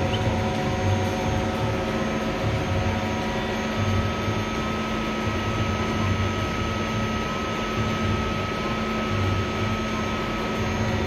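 DMG Gildemeister CTX 310 eco CNC lathe running with its spindle turning at about 890 rpm: a steady machine hum with several steady whining tones over it and a low pulsing that comes and goes.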